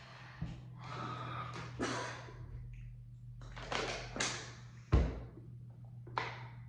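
Breathy noises and drinking from a plastic water bottle, then the bottle set down on a table with a single sharp thump about five seconds in.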